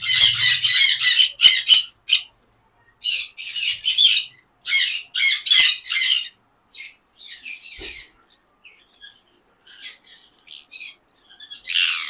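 Conures giving repeated harsh, raspy squawks in quick clusters, densest in the first couple of seconds and growing fainter and sparser in the second half.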